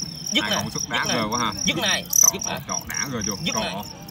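Fighting crickets chirping: a high, finely pulsed chirp that keeps going steadily, with one louder chirp about two seconds in.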